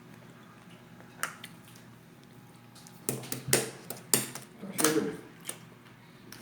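Slime being handled and squeezed: a single soft click, then a cluster of sharp, wet squelching pops and crackles starting about three seconds in.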